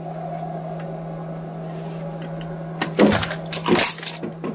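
Steady low hum, then a couple of loud clattering knocks about three seconds in and a few small clicks, as the recording phone is handled and set back in place.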